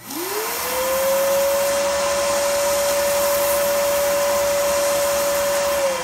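Shop vac driving a desoldering nozzle, switched on with its motor whine rising over the first half-second, then running steadily with rushing air as it sucks molten solder off the DC jack's joints. Its pitch begins to drop right at the end as it is switched off.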